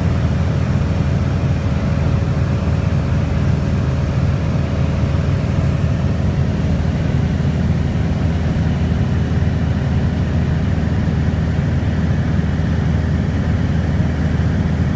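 Single-engine light aircraft's engine and propeller droning steadily in flight, heard inside the cockpit.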